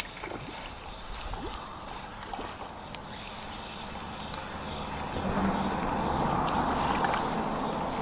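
A hooked fish splashing and thrashing at the water's surface as it is reeled in on a spinning rod. The splashing is faint at first and grows louder from about five seconds in.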